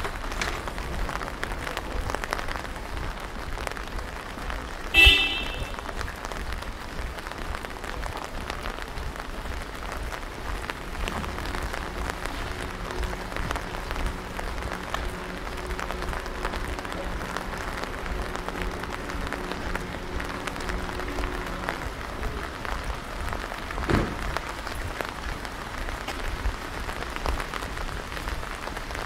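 Steady rain pattering, a dense spatter of drops. A brief sharp high-pitched clink about five seconds in, and a faint low hum from about eleven to twenty-two seconds.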